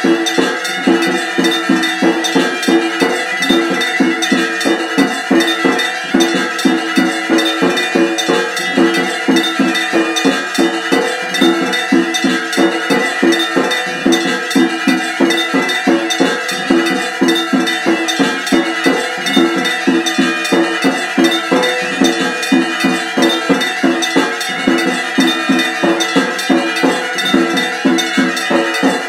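Metal temple bells struck over and over in a rapid, even rhythm of a few strikes a second, their ringing tones overlapping into a continuous clangor.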